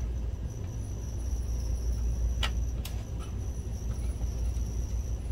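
Steady low rumble with a faint high-pitched whine. Two light clicks come about two and a half and three seconds in, as a PH000 precision Phillips screwdriver works a tiny screw.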